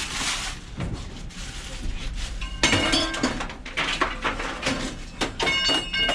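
Scrap metal clattering and clinking: after a couple of seconds of rustling noise comes a run of sharp hits with a metallic ring.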